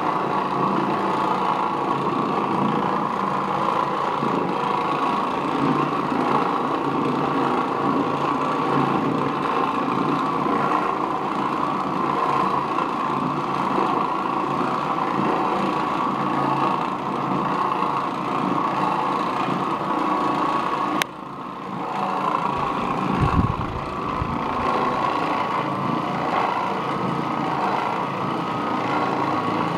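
Oreck Orbiter orbital floor machine running steadily as it scrubs carpet with a bonnet pad. About two-thirds of the way through, the sound drops out abruptly with a click and comes back within a second or two. A low thump follows shortly after.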